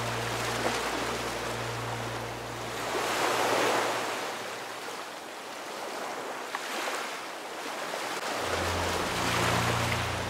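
Ocean surf washing ashore in slow swells that build and fade about three times, over low sustained background music that drops away mid-way and comes back near the end.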